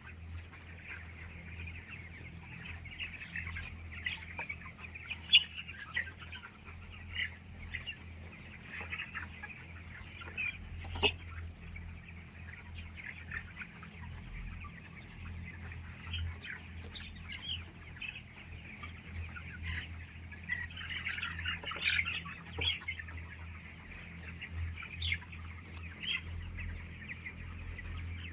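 A flock of chickens clucking and chirping without pause, with a steady low hum underneath and a few sharp knocks.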